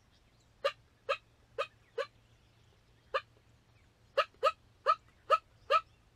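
Turkey yelps: short, sharp yelping notes in loose series, four in the first two seconds, one alone about three seconds in, then five in quick succession near the end.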